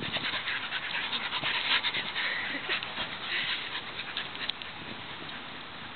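A dog panting: quick, irregular rasping breaths that fade after about three and a half seconds.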